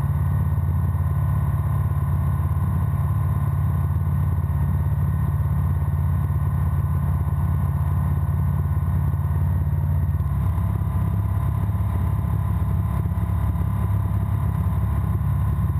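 Breezer ultralight aircraft's engine and propeller running steadily in flight: a constant low drone, its tone shifting slightly about ten seconds in.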